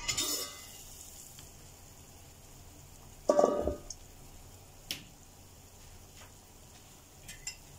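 A stainless steel pot lid is lifted off with a short metallic clatter, then the soup simmers with a steady low bubbling. About three seconds in there is a louder clunk, followed by a small click.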